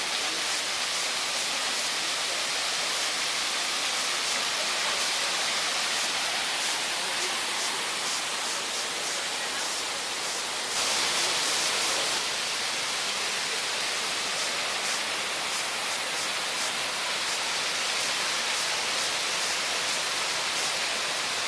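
A steady hissing rush of noise, loudest in the upper range, which swells louder and brighter for about a second and a half near the middle.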